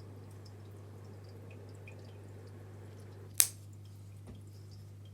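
Steady low hum with faint scattered ticks, then one sharp click about three and a half seconds in and a soft thump a second later.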